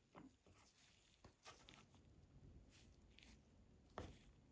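Near silence with a few faint clicks and taps, the clearest about four seconds in: small handling sounds of a nail polish brush and bottle as polish is brushed onto press-on nails.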